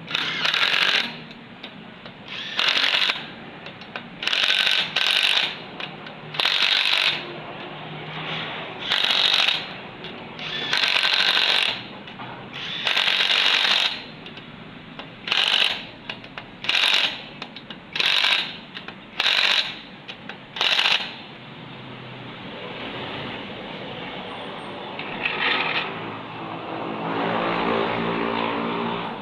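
A power tool run in repeated short bursts, about fourteen in twenty seconds, with a rattling mechanical sound. Near the end a steadier machine sound builds and rises in pitch.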